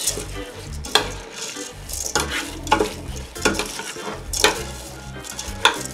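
Raw rice being stirred into fried meat and vegetables in a stainless steel pot: a dry rustle of grains with scattered short knocks and scrapes against the metal sides.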